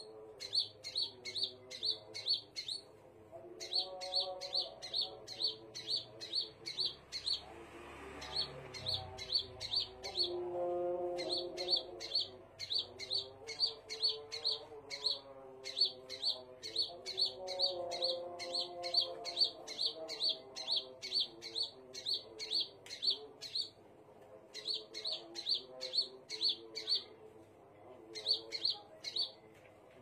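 Scarlet minivet (sepah raja) singing: runs of short, high, sharp chirps, about three a second, broken by brief pauses.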